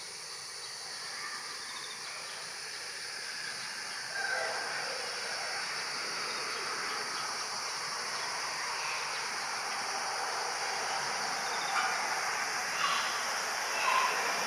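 Steady outdoor background hiss that slowly grows louder, with a few short chirps in the last few seconds.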